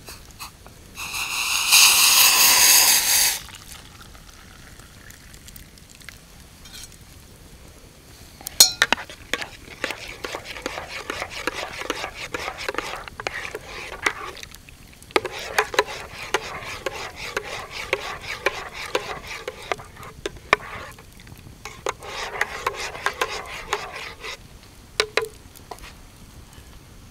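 Hot chocolate stirred with a spoon in an enamel camping mug, the spoon scraping and clicking fast against the sides in three bouts through the middle and latter part. Near the start, a louder burst of rushing noise lasts about two seconds.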